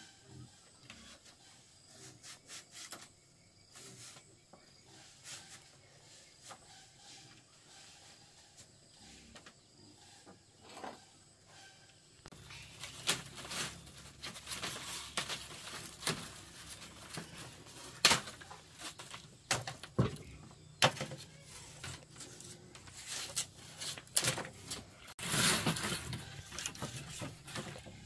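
Bamboo strips being cut and shaved with a large knife on a wooden plank floor. Light taps and clicks at first, then from about halfway louder scraping strokes and sharp knocks, the loudest a rasping stroke near the end.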